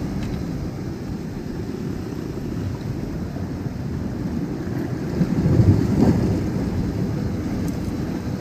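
Wind buffeting the microphone with waves washing on the shore, a steady low rumble that gusts louder a little past the middle.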